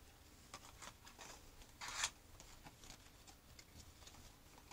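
Faint rustling and handling noises, small scrapes and clicks of things being moved by hand, with a brief louder rustle about two seconds in.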